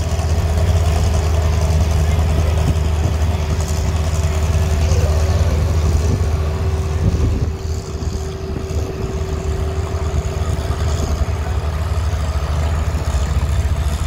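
Fendt tractor's diesel engine running at low revs, a steady low drone, as it tows the pulling sled back down the track. A thin steady whine over it stops about halfway through.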